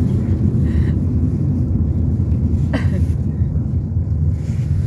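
Car cabin noise while driving: a steady low rumble of engine and road, with one short click or knock a little under three seconds in.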